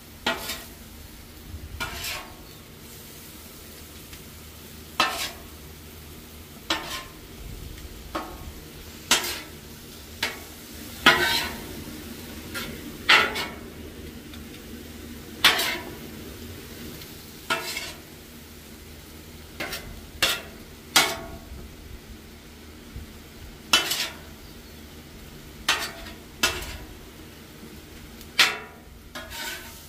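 A metal spatula scraping and chopping food on a Blackstone flat-top steel griddle, in irregular strokes about one every second or two, over a low steady sizzle of food frying.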